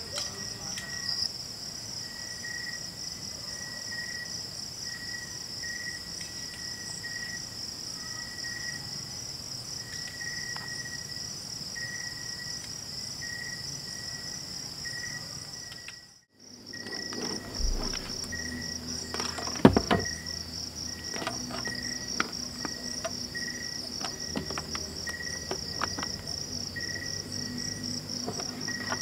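Crickets trilling steadily in the night, with a second, lower insect chirp repeating evenly about every three quarters of a second. About halfway the sound drops out for a moment, then the trilling returns with scattered light clicks and knocks of things being handled on a table, one sharper knock a few seconds later, and a faint low hum.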